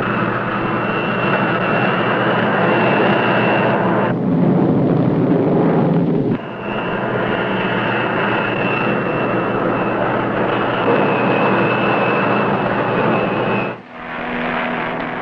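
Jet aircraft engine running loud, a dense rush with a steady high whine over it. About four seconds in, the whine drops out for a couple of seconds under a deeper rumble, then returns. Near the end the sound falls away sharply to a lower, quieter hum.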